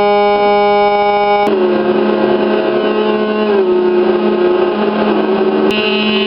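Electronic sound effect from an avalanche oscillator circuit fed through a Korg Monotron synthesizer: a steady, buzzy tone with many overtones that, about a second and a half in, switches abruptly with a click to a rougher, noisier tone. Its pitch steps down twice, then the sound changes abruptly again near the end.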